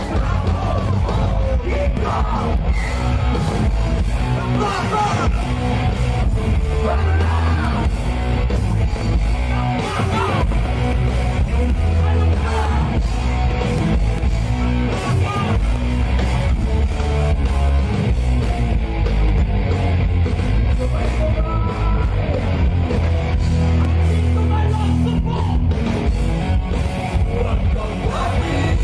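Rock band playing live: electric guitar and a full band with a singer's vocals over it.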